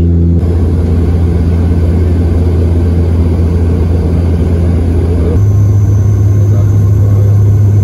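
Turboprop airliner's propellers and engines droning, heard inside the cabin: a loud, steady low hum that steps slightly higher in pitch about five seconds in.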